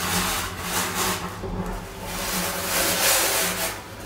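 Sawing through the septic tank's outlet pipe: rough rasping strokes in repeated swells, with a steady low motor hum underneath.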